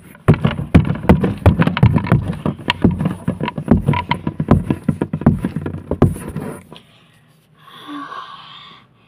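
Handling noise: rapid, irregular knocking and scraping of a phone and its microphone against cardboard and cloth, stopping about seven seconds in, followed by a short breathy noise near the end.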